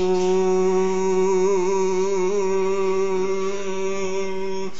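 A man's voice holding one long, steady note with a slight waver in pitch, breaking off near the end as for a breath.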